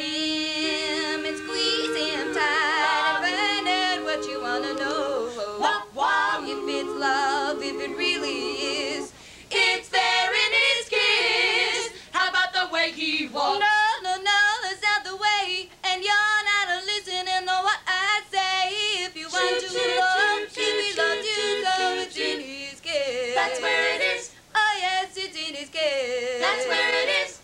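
Four women singing a cappella in close harmony. For the first several seconds they hold chords with vibrato, then move into a quicker, rhythmic passage.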